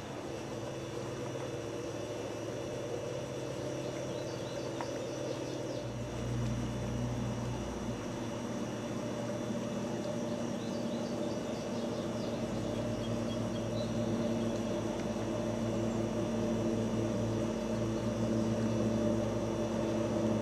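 An engine running steadily with a drone that slowly grows louder, as if drawing closer.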